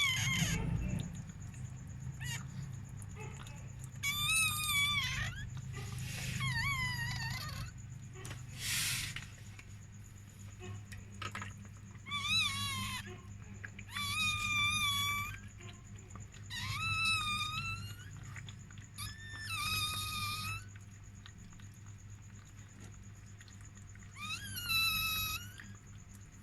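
Newborn chihuahua puppy crying in high, wavering squeals, each about a second long, repeated about seven times.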